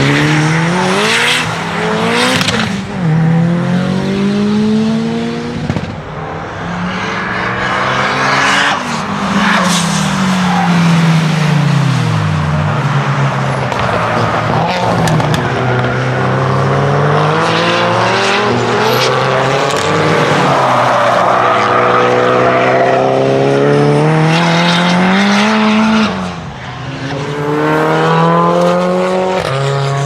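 Tuned Lancia Delta Integrale 16v's turbocharged four-cylinder engine revving up and falling back repeatedly as it is driven hard through gears and corners, with some short sharp noises between revs. It grows louder near the end as the car comes close.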